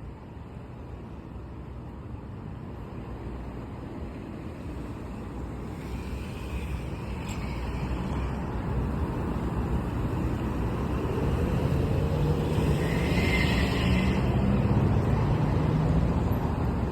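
Street traffic: a motor vehicle's engine rumble growing steadily louder as it draws near, its pitch rising in the second half, with a brief hiss partway through.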